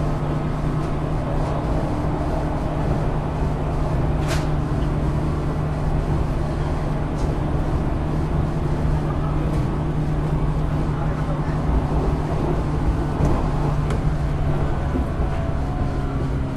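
Interior running noise of a JR West 475 series EMU motor car: the MT54 traction motors hum at a steady pitch over wheel-on-rail rumble as the train runs at an even speed. A sharp click comes about four seconds in.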